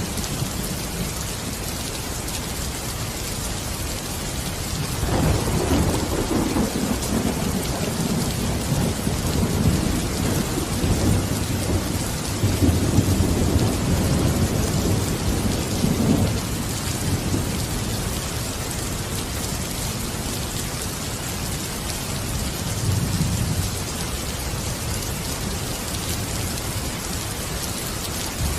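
Steady heavy rain falling, with a long low roll of thunder rumbling from about five seconds in to about sixteen seconds, and a fainter rumble a little after twenty seconds.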